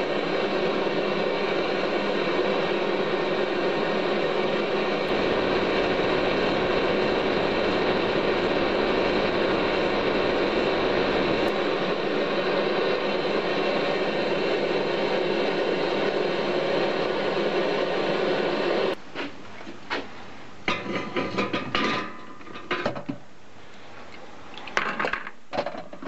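Small brick forge running with a steady rushing noise while a knife blade heats in it. It cuts off abruptly about three-quarters of the way through, followed by a few knocks and handling clatter.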